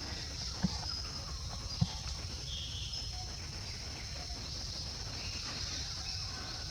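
Outdoor ambience: a steady high-pitched drone over a low rumble, with two short sharp knocks in the first two seconds.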